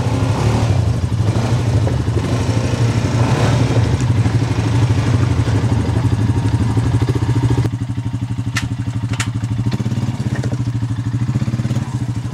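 ATV engines running at idle with a steady pulsing drone. About eight seconds in the sound shifts to a single ATV engine at low throttle as it crawls over rocks, with two sharp clicks soon after.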